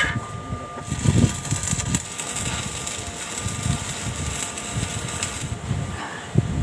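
Electric arc welding crackling steadily as a rebar stirrup is welded to a column cage. It starts about a second in and stops about a second before the end.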